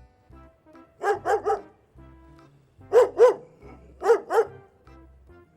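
A dog barking in quick clusters: three barks about a second in, two more near the middle and two shortly after, over quiet background music.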